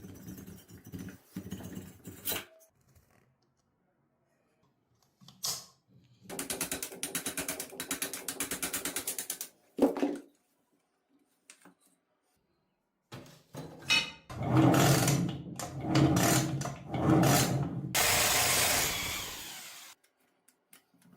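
Hand tools at work on a scooter engine during teardown: a run of rapid ratchet clicks, a sharp knock, then loud clattering of metal parts being handled, and a brief steady hiss near the end.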